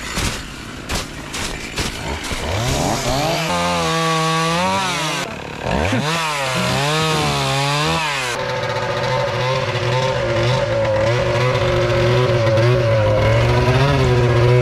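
Crunching steps in snow, then a chainsaw revved up and down repeatedly while cutting a spruce log. About two-thirds of the way through, the sound switches to a Polaris snowmobile's engine running steadily at idle.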